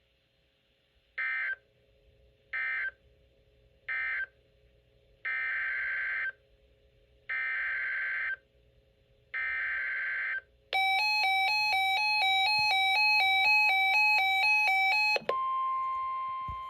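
EAS / NOAA Weather Radio alert signalling. First come three short screechy SAME digital data bursts, the end-of-message code. Then come three longer SAME header bursts announcing the next alert. About 11 seconds in, a buzzy alert tone alternating between two pitches sounds for about four seconds. Near the end it gives way to the steady warning alarm tone of the weather radio.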